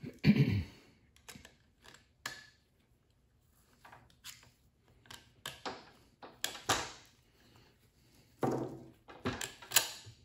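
Irregular metallic clicks and knocks as a screwdriver pries the snap ring out of a 4R70W automatic transmission's forward clutch drum, with the steel drum shifted in the hands. The loudest knocks come just after the start and in a cluster near the end.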